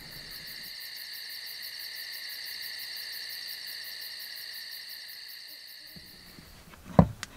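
Steady high-pitched insect chirring with a fast, even pulse, fading out about six seconds in, then a single sharp knock near the end.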